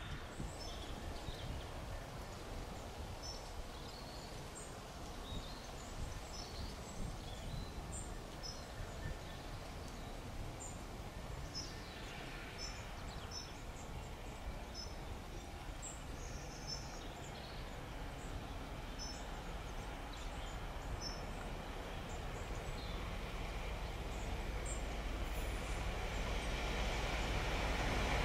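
Diesel train approaching from a distance, its low rumble growing steadily louder over the last several seconds. Small birds chirp now and then.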